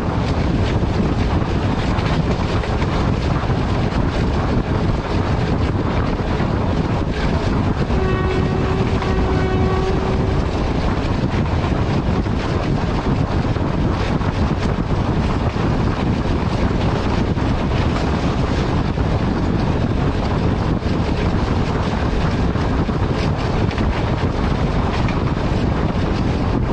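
ALCO diesel-electric locomotive running under way, a steady heavy engine and rail noise with wind buffeting the microphone. About eight seconds in, a train horn sounds once for roughly two and a half seconds.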